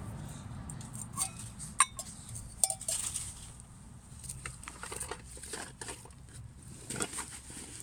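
Light metallic clinks and taps as a small piece of metal camp-cooking gear is handled and set down on a rock, with a few sharper clinks, the loudest about two seconds in.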